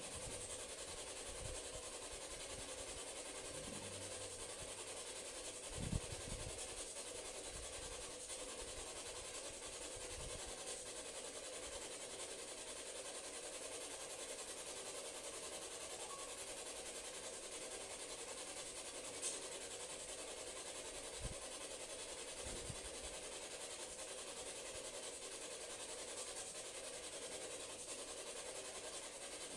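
Quiet room tone: a steady hiss from the recording microphone, with a few faint low bumps scattered through it.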